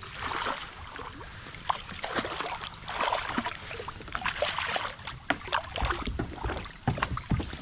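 A hooked pike splashing at the water surface beside a kayak as it is reeled in, with scattered sharp clicks and knocks.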